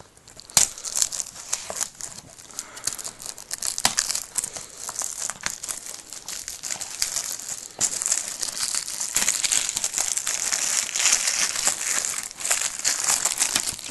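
Plastic shrink-wrap on a DVD case being torn open and crinkled as it is pulled off, a dense crackling that gets busier and louder about halfway through.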